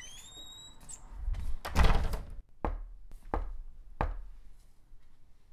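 Heavy knocking on a front door: one loud bang about two seconds in, then three separate knocks at a slow, even pace. A short rising tone sounds at the very start.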